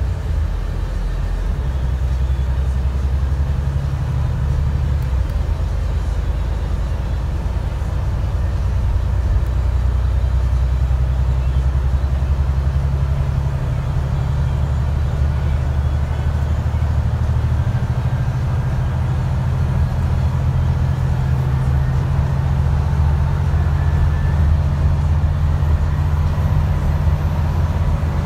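Alexander Dennis Enviro 400 MMC double-decker bus driving along, heard from on board: a steady low engine drone with road noise, the engine note shifting a few times as the bus changes speed.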